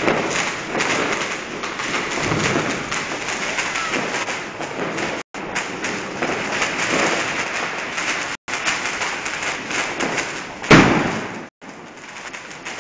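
Hand-held firework fountain spraying sparks with a dense crackling hiss, and one loud bang near the end. The sound drops out for an instant three times.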